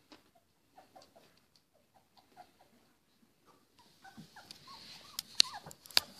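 Three-week-old puppies giving short, high squeaks and whimpers, more of them in the last couple of seconds, with two sharp clicks near the end.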